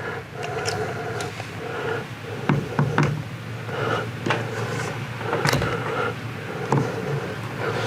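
Power drill driving self-tapping screws through a door sweep into a door in short repeated bursts, with sharp clicks and knocks in between.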